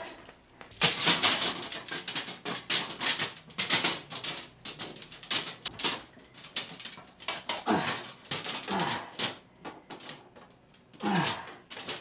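Coiled copper tubing clattering and scraping against a wooden floor as it is pulled apart and straightened by hand, in irregular rattling strokes. A few short falling-pitch groan-like sounds come near the end.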